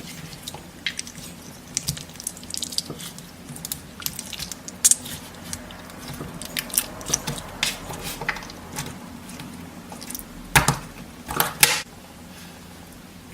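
Slime being squeezed and pressed by hand: irregular sticky clicks and small pops, with a couple of louder, longer squelches near the end.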